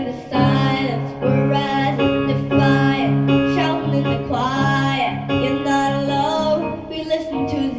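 Pop song backing track with guitar and a pulsing bass line, and a girl's singing voice over it.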